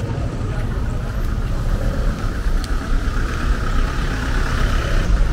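Road traffic on a rain-soaked, waterlogged road: car engines running as vehicles pass slowly, their tyres hissing through standing water, the hiss swelling about halfway through.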